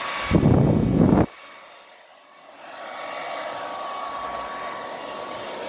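Handheld hair dryer running with a steady rushing hiss and a thin whine, with a loud blast of air hitting the microphone for about a second near the start. It then drops away and runs back up to full speed about three seconds in.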